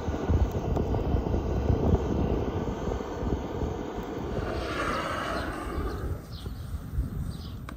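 Handheld gas torch roaring as its flame is held into a pile of dry sticks to light them. The roar eases off about six seconds in.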